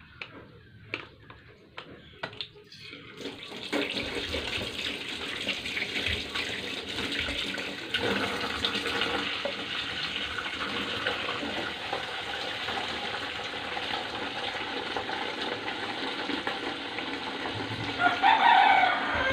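A few sharp clicks. Then, from about three seconds in, a tap runs steadily, its water pouring from a hose into a steel pot of fruit in a sink. A short animal call sounds near the end.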